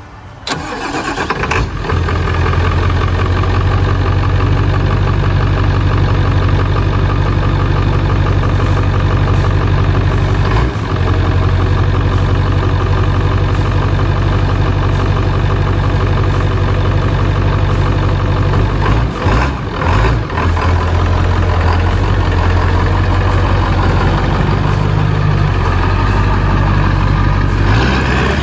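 Ford 7.3 L Power Stroke turbo-diesel V8 running at a steady idle, coming in suddenly just after the start, with short dips in the sound about ten seconds in and again around nineteen to twenty seconds. Right at the end the engine note rises as the truck pulls away.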